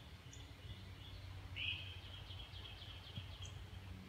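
Birds chirping outdoors: one louder rising call about one and a half seconds in, then a quick run of short chirps, over a faint low steady hum.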